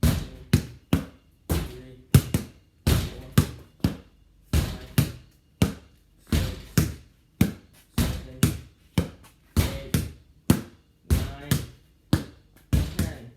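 Basketball hit again and again in a rally against a garage door with a racket: a run of ringing bounces, about two a second.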